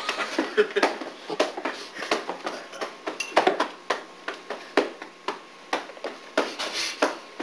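Rapid, irregular knocks and taps, with brief scraps of voices, in a small room.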